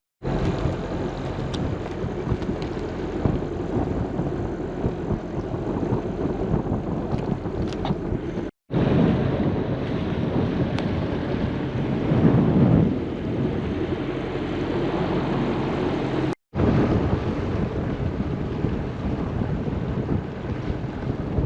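A sailboat's inboard engine running steadily under way while motor sailing, with wind buffeting the microphone and water rushing along the hull; a louder gust swells about halfway through, and the sound cuts out briefly twice.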